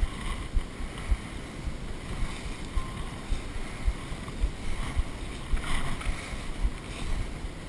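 Outdoor wind noise rumbling on the microphone, with irregular low thumps every half second to a second.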